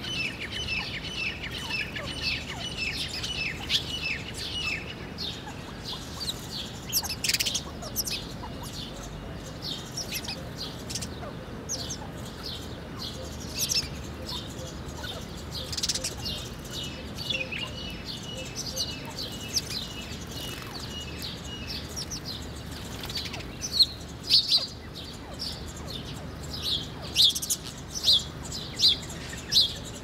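Small feeding birds, mostly house sparrows, chirping in a steady stream of short chirps. Louder, sharper chirps come in quick succession over the last several seconds.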